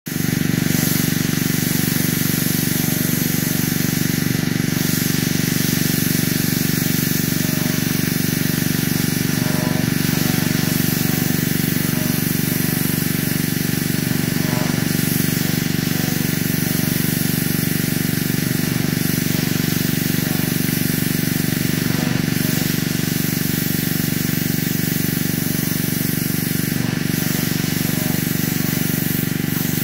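Pressure washer running steadily: its motor hums evenly under the continuous hiss of the high-pressure water jet striking wooden deck boards.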